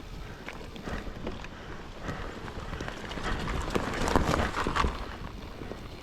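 Mountain bike riding over a rough forest trail: irregular knocks and rattles of the tyres and frame over roots and stones, busiest and loudest about three to five seconds in.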